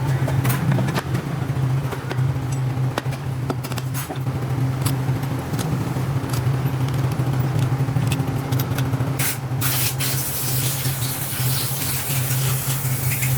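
A motor running with a steady low hum, with scattered sharp clicks and scrapes, and a loud hiss that starts about ten seconds in.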